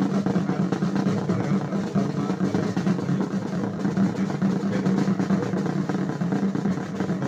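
Military snare drum played in a continuous roll, steady and dense without a break.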